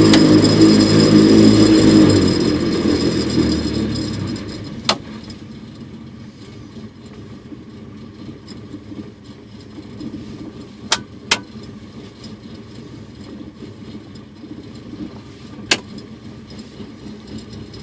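MWfly aircraft engine on a test bench being throttled back from high revs: it runs loud for the first couple of seconds, winds down over the next two, then idles steadily at about 870 rpm. Four sharp clicks sound over the idle, two of them close together.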